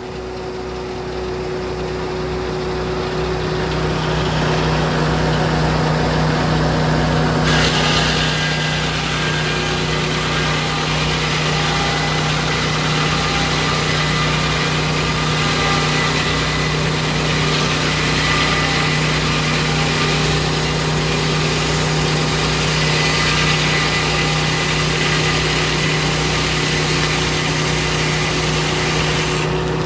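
Sawmill engine running steadily while the mill saws the cedar log. About seven seconds in, a louder, higher-pitched sawing noise joins the engine hum and continues.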